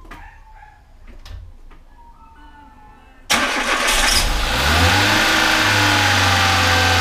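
An old car's engine, fed by a portable power-bank jump starter standing in for its flat battery, starts about three seconds in. Its revs climb for a second or so and then it settles into a steady idle.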